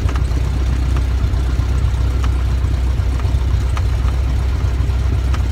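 Cessna light aircraft's piston engine and propeller running steadily, heard inside the cabin as a loud, even, low drone.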